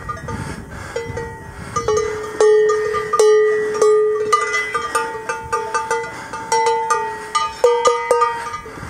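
Cowbells on the necks of several cows clanking irregularly as the cows walk, each strike ringing on briefly, some bells pitched differently from others.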